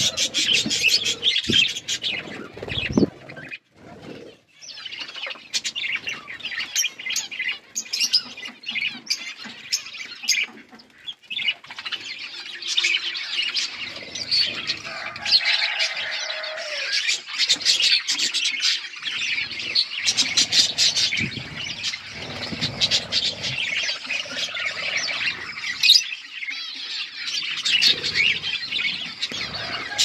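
A flock of budgerigars chattering and chirping continuously, many birds calling over one another in a busy, high-pitched warble, with short clicks mixed in. The chatter thins briefly a few seconds in and again near the middle.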